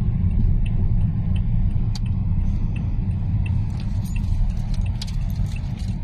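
Car cabin noise while driving: a steady low rumble of engine and road, with a light regular tick about every 0.7 seconds, typical of the turn signal, and a few small rattling clicks in the second half.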